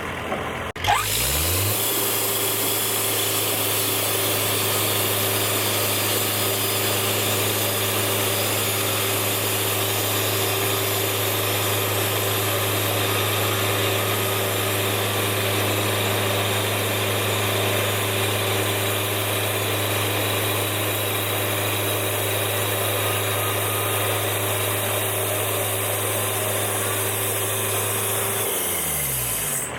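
Sawmill engine speeding up from idle about a second in and running at steady full speed with the saw making a long cut through a log, then slowing back to idle near the end.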